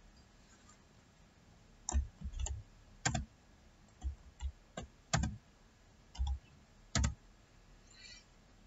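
Slow, hesitant typing on a computer keyboard: single key taps and clicks spaced out with pauses between them, starting about two seconds in.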